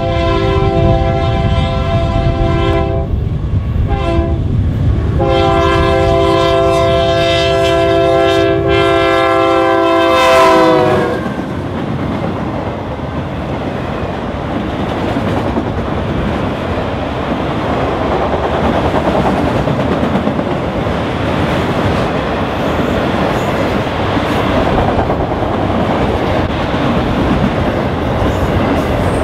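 A GE AC4400CW diesel locomotive's horn sounds in a few blasts, the last one long, its pitch dropping as the locomotive passes about eleven seconds in. Then the autorack freight cars roll by with a steady rumble and wheel clatter on the rails.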